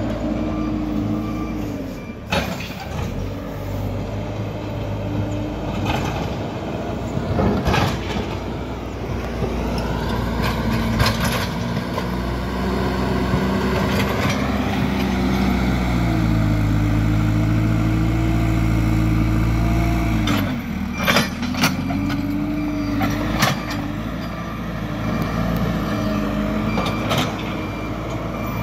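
Backhoe loader's diesel engine working as the machine drives and pushes soil with its front bucket. About halfway the engine speeds up and holds higher and louder for a few seconds, then drops back, with several sharp knocks along the way.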